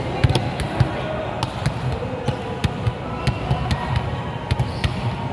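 Volleyballs being struck and bouncing on the court floor, a string of sharp slaps coming about every half second and echoing around a large hall, with players' voices in the background.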